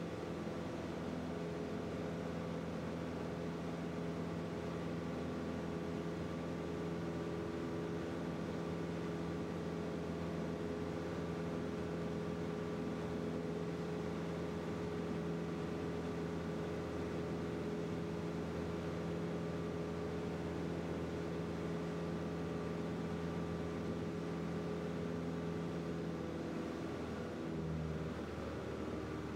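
Single-engine light aircraft's piston engine and propeller droning steadily in flight, heard inside the cabin; the pitch of the drone shifts briefly near the end.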